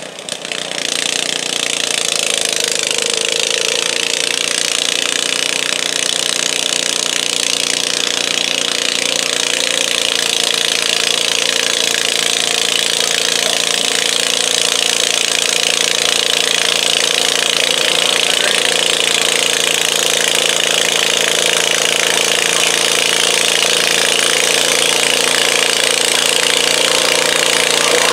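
John Deere garden tractor engine at full throttle under load, pulling a weighted stoneboat sled. It revs up over the first couple of seconds, then runs steadily and grows slowly louder, with the large farm tractor behind the sled also running.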